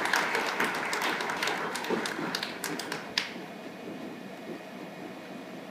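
Audience applause thinning to scattered claps and dying away about three seconds in, leaving a faint steady hall hum.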